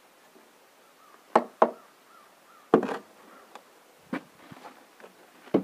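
A hammer knocking on a wooden form board at the edge of fresh concrete: five sharp knocks at uneven spacing, the first two close together.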